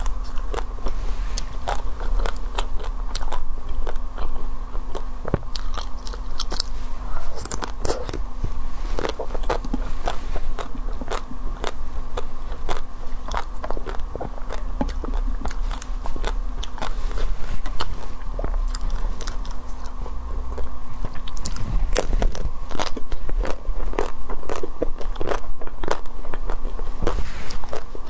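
Close-miked eating of Magnum ice cream bars: irregular bites and chewing, with the crisp chocolate coating cracking and crackling into many small sharp clicks.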